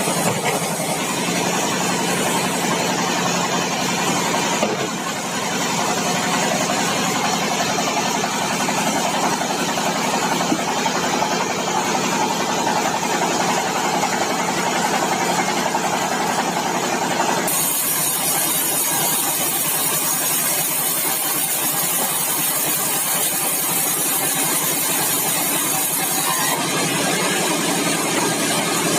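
Sawmill engine running steadily. About two-thirds of the way through, the sound changes abruptly: the lower engine tone drops back and a high hiss comes in for several seconds.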